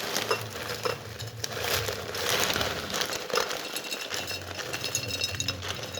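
Crinkling and rustling with many small scattered clicks, as something is handled.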